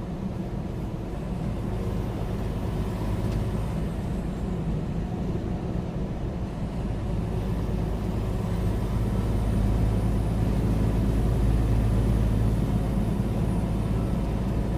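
Steady drone of a loaded semi-truck at highway speed, heard from inside the cab: diesel engine and road noise, growing a little louder about eight seconds in.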